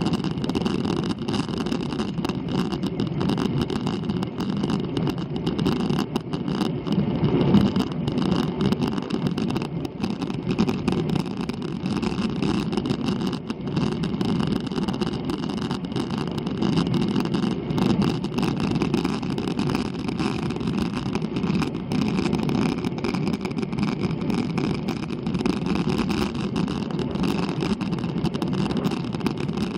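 Steady wind rumble on the microphone of a handlebar-mounted action camera as a road bike climbs at about 16–20 km/h, with no breaks.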